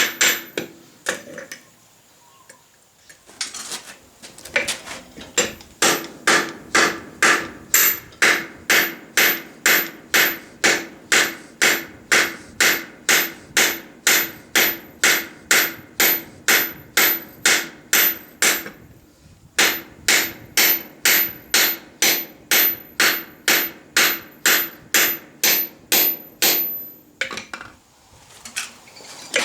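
Hand hammer forging hot steel bar stock on an anvil: steady blows about two a second, each with a bright ring, in two long runs broken by a short pause about two-thirds through.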